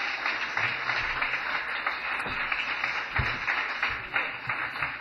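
Concert audience applauding, a dense patter of clapping that starts to die down near the end.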